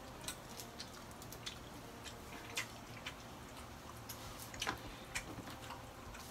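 Faint eating sounds: irregular small clicks and smacks from mouths chewing and from hands handling food, about a dozen scattered through, the strongest about two-thirds of the way in.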